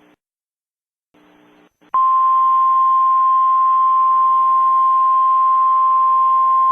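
Faint radio hiss that drops out briefly, then about two seconds in a loud, steady single-pitch alert tone starts and holds. This is the Emergency Alert System attention tone, the 1050 Hz NOAA Weather Radio warning alarm, which signals that a voice warning message follows.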